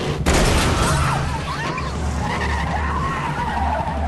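Muscle car engines rumbling in a high-speed chase, with tyres squealing. The squeal starts suddenly about a quarter second in and wavers in pitch.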